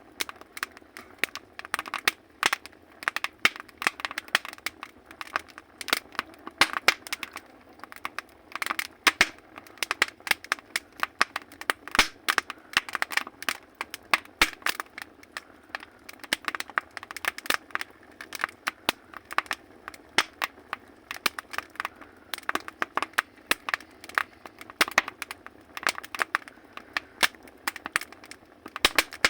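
Firewood burning in a wood stove, crackling and popping with dense, irregular sharp snaps over a faint steady hiss.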